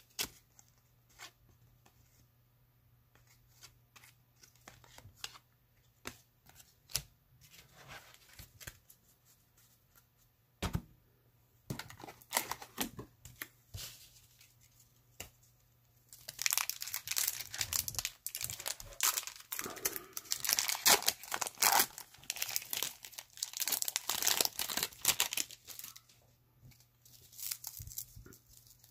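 Trading-card pack wrapper crinkling and tearing: scattered light taps of cards being handled at first, then about ten seconds of dense crinkling and tearing from about halfway through that dies down near the end.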